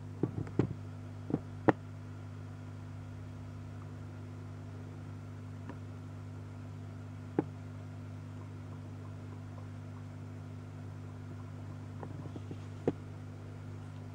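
Steady low electrical hum of aquarium equipment, with a scatter of sharp clicks: several in the first two seconds, one near the middle and one near the end.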